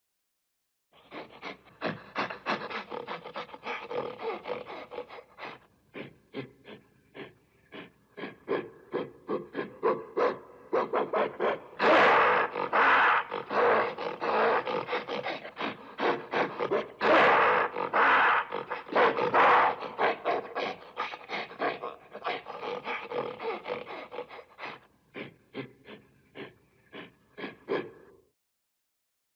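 Gorilla vocalizing in a rapid series of breathy, panting grunts, about three or four a second, growing louder and harsher in the middle.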